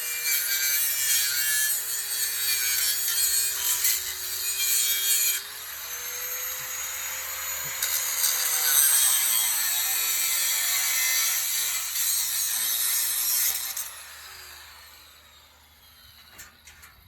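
Power tool cutting, its motor pitch sagging and recovering as it bites into the material. It stops about fourteen seconds in and the sound fades.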